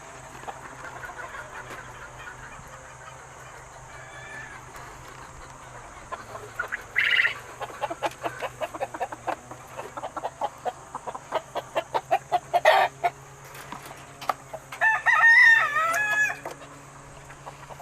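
Game chickens clucking, with a short sharp call about seven seconds in, then a game rooster crowing once, about a second and a half long, near the end.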